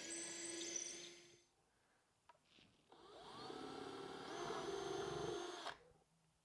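Small electric power-tool motor running in two bursts: the first winds down about a second and a half in, and the second spins up with a rising whine about three seconds in, holds steady, and cuts off sharply near the end.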